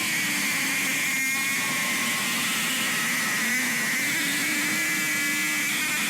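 A steady mechanical whir: an even hiss with a high, level whine held over it, unchanging in loudness.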